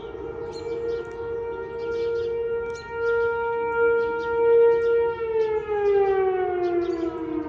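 Whelen 4004 tornado siren sounding a steady tone during a test, then falling in pitch from about five seconds in as the signal winds down.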